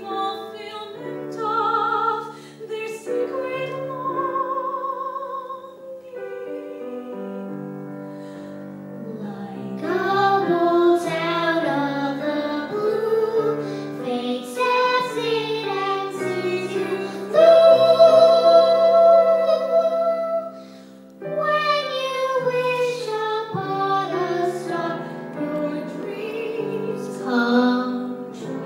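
A female voice singing a slow, classical-style melody with vibrato over instrumental accompaniment, holding one long loud note for about three seconds past the middle.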